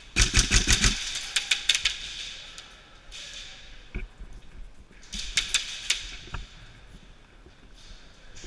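Airsoft guns firing rapid full-auto bursts: a loud burst right at the start, scattered shots over the next second, and another burst about five seconds in.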